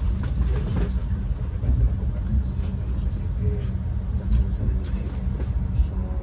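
Railway station ambience: a low, steady rumble with faint voices in the background.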